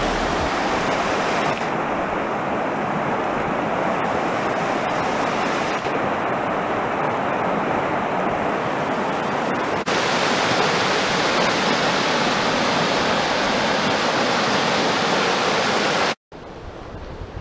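Fast, shallow river rushing over a stony bed: a steady noise of running water, a little louder and brighter from about ten seconds in, cutting off suddenly near the end to a quieter background.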